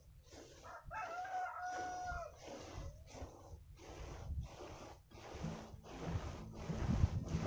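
A rooster crows once, about a second in. Under it is a regular swish-crunch about twice a second: boots walking through a layer of coffee cherries spread out to dry. A low steady tone joins about two-thirds of the way through.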